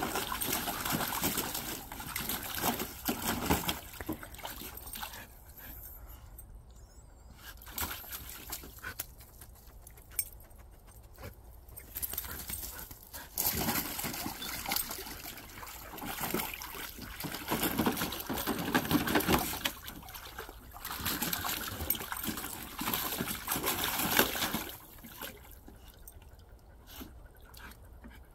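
A husky splashing and pawing in the muddy water of a small plastic kiddie pool, in stretches of sloshing and splashing with quieter pauses between.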